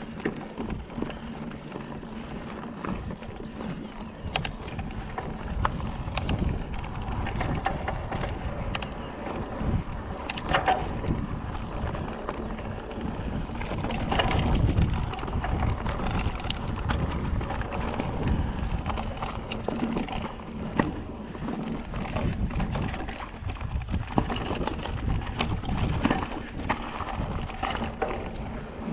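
Mountain bike ridden over a rough trail, with irregular clicks and rattles and wind rumbling on the microphone.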